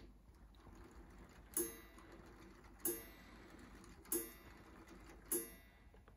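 LEGO mechanical pendulum clock's striking mechanism striking the hour four times: four ringing strikes evenly spaced about a second and a quarter apart.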